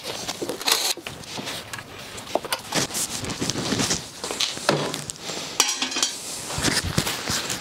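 Irregular clinks and clatters of metal tools and parts being handled, with no engine running.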